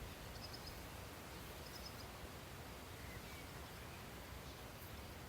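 Faint outdoor ambience: a steady low hiss with a few brief, distant bird chirps.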